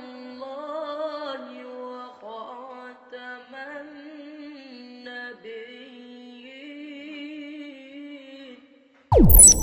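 A man reciting the Quran in melodic tajweed style, drawing out long ornamented notes with a wavering voice. About nine seconds in the voice stops and a loud electronic ding with a fast falling swoosh cuts in.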